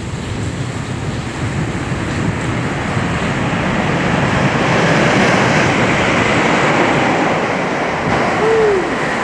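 A train passing through the tunnel, a rushing rumble that swells to its loudest around the middle and then eases off, echoing in the enclosed space. Near the end a short tone rises and falls.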